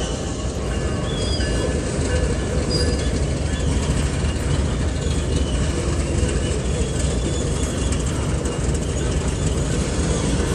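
Freight train cars rolling steadily past, a continuous rumble of steel wheels on rail with a few faint, brief wheel squeals in the first few seconds.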